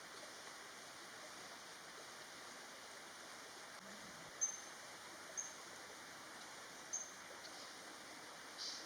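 Steady rush of a forest stream, with three short, high-pitched bird calls in the middle and a brief higher chirp near the end.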